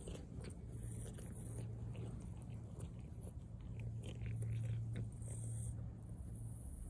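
Domestic cat chewing and nibbling close to the microphone: a run of small irregular clicks and crunches, over a low steady hum.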